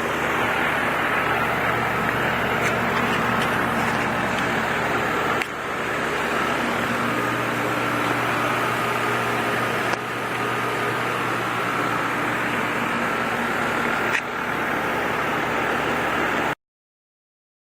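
New Day and Night outdoor air-conditioning condenser running steadily, its fan and compressor giving a constant whooshing hum with a faint whine, freshly charged and running on target. The sound cuts off suddenly near the end.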